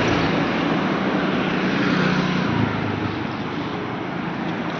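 A police van driving past: a steady engine hum with tyre and road noise, loud for the first two and a half seconds or so, then dropping away.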